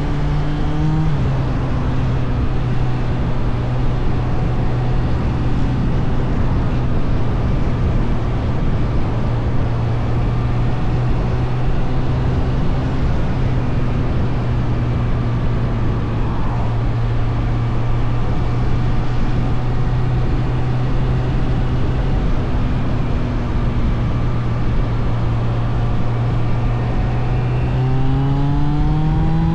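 Suzuki GSF600 Bandit's inline-four engine running at steady cruising revs over wind rush, the note dropping a step about a second in and climbing as the bike accelerates near the end.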